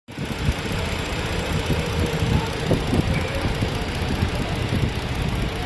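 A vehicle engine running, cutting in suddenly at the very start with a dense, uneven low rumble.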